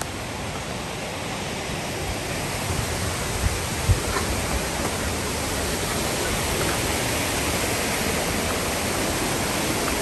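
Rushing water of a waterfall and its creek, a steady hiss that grows gradually louder. Two brief thumps come about three and a half seconds in.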